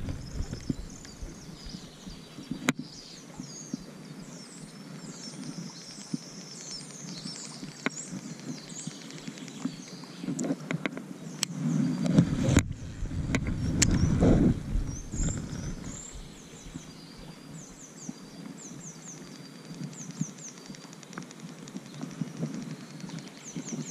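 Wild birds singing in repeated high chirping phrases over a steady rush of river water. A couple of sharp clicks, and a louder low rumble about halfway through.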